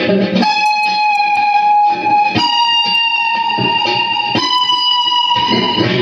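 Electric guitar playing a slow lead line of long sustained high notes: three held notes, each a little higher than the one before, changing about two seconds in and again about four seconds in, over faint picked notes.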